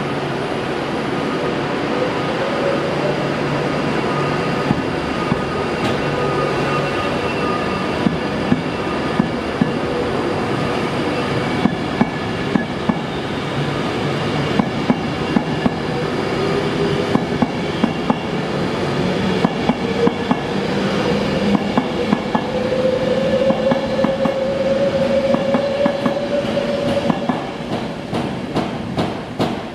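Class 390 Pendolino electric multiple unit pulling away and gathering speed: a steady rumble with a whine that slowly rises in pitch. The wheels click over the rail joints, at first a few at a time and then faster and faster as the carriages go past.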